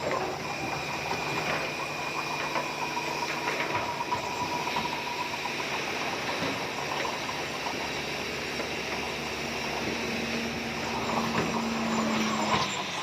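Komatsu crawler bulldozer's diesel engine running steadily under work, with thin squealing tones from the machine that come and go.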